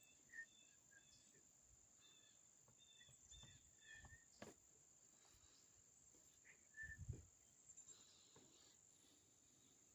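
Faint evening crickets trilling steadily at a high pitch, with a few soft, short bird chirps in the first four seconds and again near seven seconds, and a soft thump about seven seconds in.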